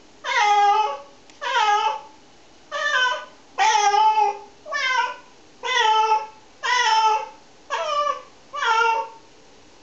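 Tabby cat meowing over and over, about one meow a second, nine in all, each a short wavering call.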